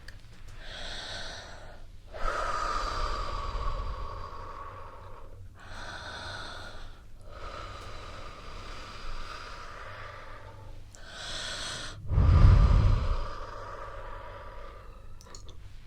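Slow, deep breathing close to the microphone: three breaths in and out, each short hissing inhale followed by a longer exhale. About twelve seconds in, the third exhale blows onto the microphone with a low rumble, the loudest moment.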